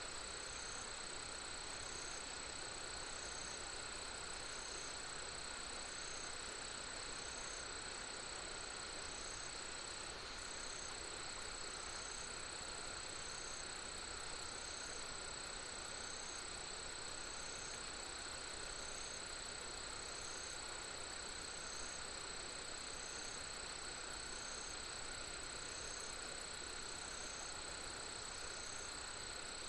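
Insects, crickets among them, chirring in a steady drone of several pitches, one high chirp pulsing a little slower than once a second, over an even hiss.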